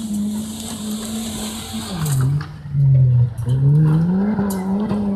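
A small hatchback's engine is held at high revs on a dirt autocross course. About two seconds in the revs drop, then climb again as it accelerates away through the bend.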